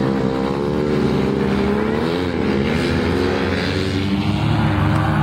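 100cc flat track racing motorcycles revving hard, their engine pitch rising and falling as the throttles open and close, with a swell and drop about two seconds in.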